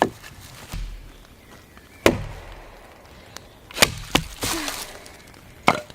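A series of five sharp knocks at uneven intervals, each a single hard strike, like a blade or tool hitting wood.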